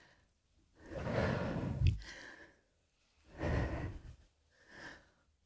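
A woman breathing audibly during a slow arm-and-shoulder exercise: two long, hissy breaths about two seconds apart, with a fainter short breath near the end.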